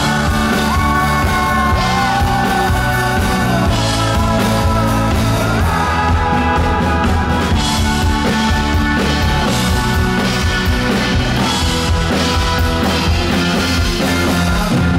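Live rock band performance: a male lead vocal singing over piano and a steady drum beat.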